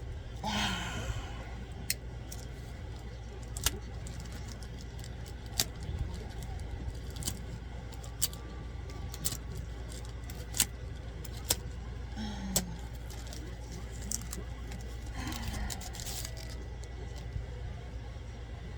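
Packaging being handled and opened by hand, with scattered sharp clicks and crinkles and bursts of rustling near the start and again about fifteen seconds in, over a steady low hum.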